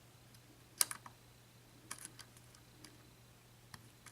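A handful of faint, irregular metallic clicks from a lock pick working the pin stacks of an Abus 83/45 padlock with a Schlage Everest cylinder during single-pin picking. The sharpest click comes just under a second in.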